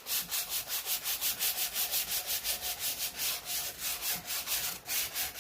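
Sandpaper rubbed by hand over the rough cast iron side wall of a new Lodge skillet in rapid, even back-and-forth strokes, knocking down the casting ridges and bumps.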